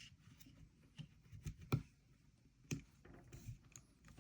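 Faint, scattered clicks and taps of small metal and polymer Glock 45 Gen 5 trigger parts being handled and pressed back into the frame, about five light clicks spread unevenly, the sharpest a little before the middle.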